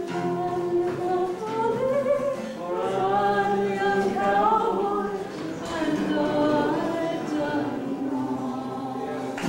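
Unaccompanied singing, with held notes that glide between pitches.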